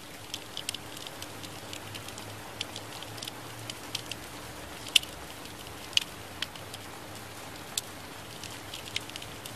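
Recorded rain: a steady hiss with scattered sharp drip-like ticks, a few louder ones about five and six seconds in, over a faint low hum.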